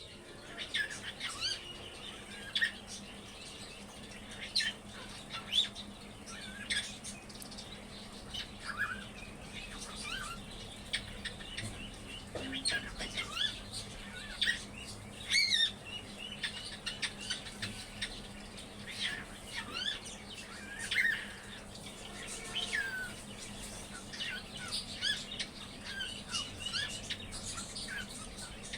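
Cockatiel chirping and whistling in a steady stream of short calls, many of them quick rising or falling whistle notes.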